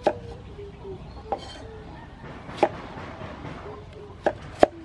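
Knife chopping vegetable chunks on a round wooden chopping board: five sharp chops at uneven intervals, the last two close together near the end.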